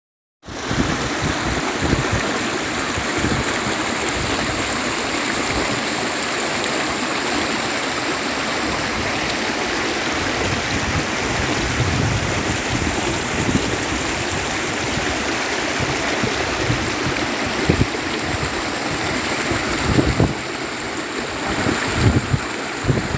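Steady rush of a stream's running water, starting abruptly about half a second in, with wind buffeting the microphone in irregular low thumps.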